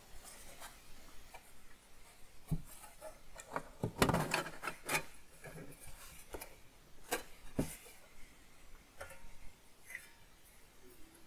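Sheet-metal power supply case being handled and turned over by hand: scattered knocks, clicks and rubbing, the loudest cluster about four seconds in.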